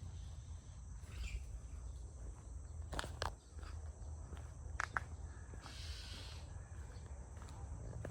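Outdoor background with a low rumble, a few sharp clicks or taps (a pair about three seconds in and another pair about five seconds in), a brief soft hiss about six seconds in, and a faint steady high tone throughout.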